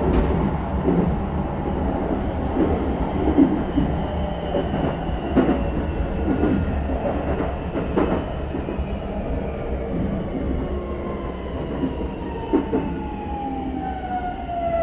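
Keisei 3100 series train heard from inside the car as it slows. The Toyo hybrid SiC-VVVF inverter whine falls slowly in pitch under braking, over a steady low rumble of the running gear and wheels clicking on rail joints.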